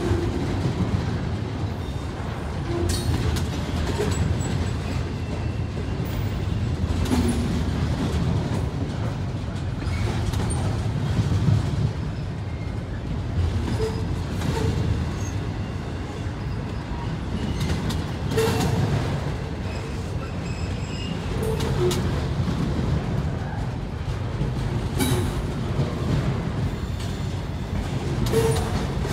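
Double-stack intermodal freight train rolling past close by: a steady rumble of steel wheels on rail, broken by occasional clanks from the well cars and faint brief wheel squeals.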